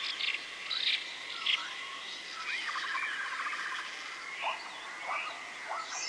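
Forest ambience: repeated chirping, trilling animal calls over a steady high hum, with a run of short falling calls about two thirds of the way through.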